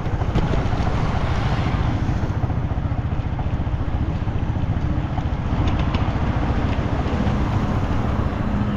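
An engine running steadily at close range, with a rapid low pulsing throughout; a steady hum joins near the end.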